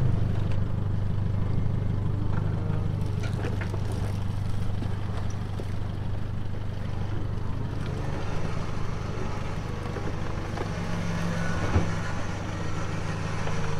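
Isuzu D-MAX's diesel engine running steadily at low revs as the four-wheel drive crawls through deep ruts on a steep dirt hill climb, with a single knock near the end.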